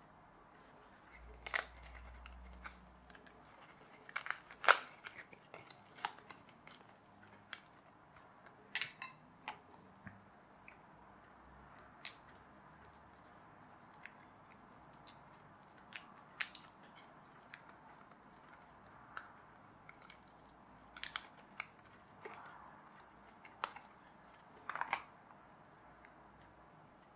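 Pre-cut card pieces of a pull-back toy plane kit being pushed out of their sheet and worked with a small screwdriver: irregular sharp snaps and clicks with light handling rustle, one snap much louder about five seconds in.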